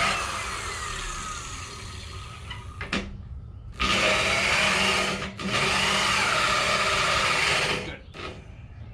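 Electric grinder sharpening carbide saw-blade inserts. It winds down with a falling whine at the start, blips briefly about three seconds in, then runs in two spells of a second or two each before cutting off near the end.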